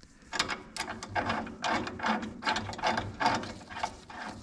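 Hand ratchet clicking in quick repeated strokes, about three a second, as the bolts of a disc-brake caliper bracket on the front spindle are tightened down.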